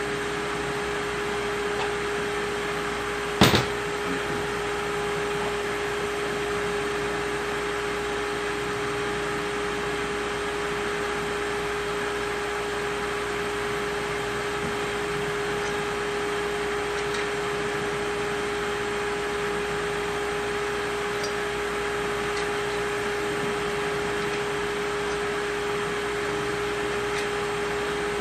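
A steady machine hum with a constant tone, and one sharp knock about three and a half seconds in.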